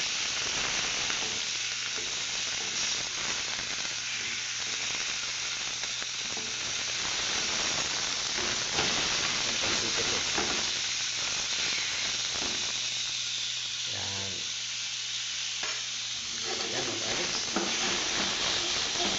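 Beef steaks sizzling steadily as they fry in a non-stick pan, with occasional small clicks and scrapes of a fork turning them against the pan.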